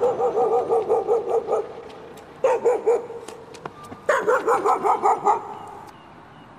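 A dog barking in three quick runs of barks, one straight after another, with short gaps between the runs.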